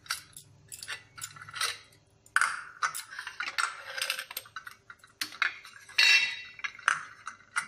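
Aluminium idli stand plates clinking and scraping against each other and the stem as they are pulled off the stand and set down on the counter, in irregular clatters with the loudest about two and a half seconds in and again about six seconds in.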